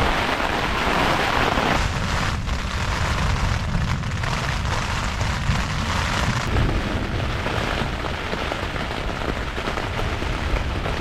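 Wind-driven heavy rain pelting a tent in a storm, with gusts buffeting the microphone in a steady low rumble.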